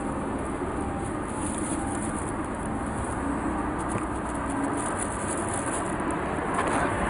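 Steady background hum of road traffic, with a few faint scattered clicks.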